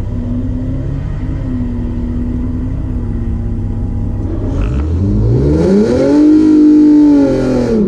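Drag car's engine running steadily at low revs, then revving hard from about four and a half seconds in. The note climbs, holds high and loud for a second or so, then drops sharply near the end.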